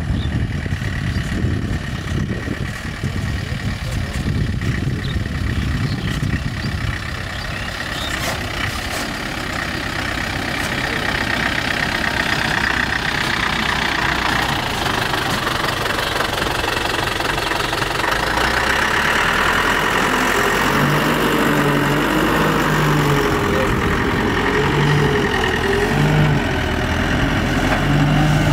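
Diesel engine of a loaded dump truck running at low speed on a dirt track. It gets a little louder and closer in the second half, with its engine note rising and falling.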